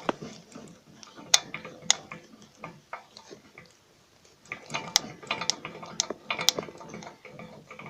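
Worn inner CV joint on a 1996 Honda CR-V's front driveshaft clicking and clanking as the shaft is worked, a scatter of sharp clicks that stops for about a second halfway through and then comes back more densely. This play in the joint is what makes the car clunk over bumps.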